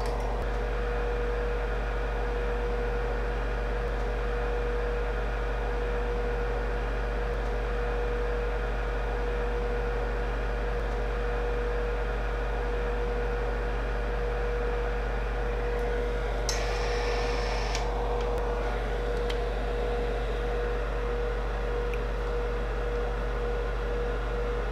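Steady machine hum with a constant mid-pitched tone over a low electrical hum. A short hiss lasts about a second, two-thirds of the way in.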